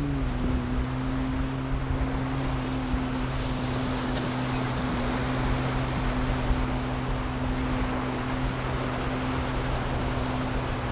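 Steady engine hum whose pitch drops just at the start and then holds level, over a constant wash of wind and surf.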